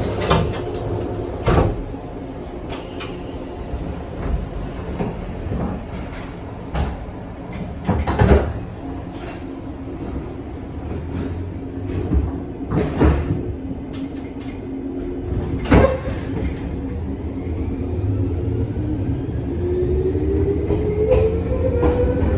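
Izukyu 2100 series resistance-control electric train heard from inside the car, standing with a steady low rumble and several sharp knocks and clunks, then pulling away: from near the end a traction-motor whine rises steadily in pitch as it accelerates.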